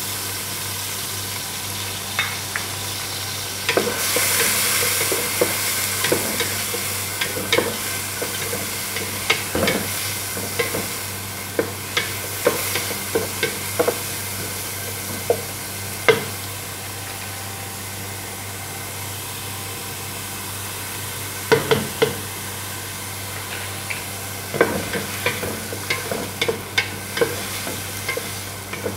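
Chopped red onions sizzling in hot oil in a pan, with a steady hiss throughout. A stirring utensil scrapes and knocks against the pan at irregular moments as the onions are sautéed.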